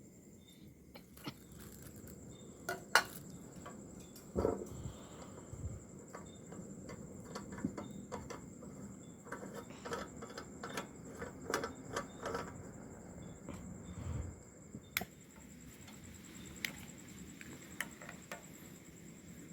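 Kerosene pressure lantern being handled while it is lit: irregular light metallic clicks and knocks, busiest about halfway through.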